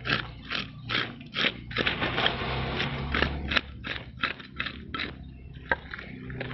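A blade scraping the large scales off a big fish, in repeated short rasping strokes about two or three a second, denser for a moment a couple of seconds in and thinning out near the end.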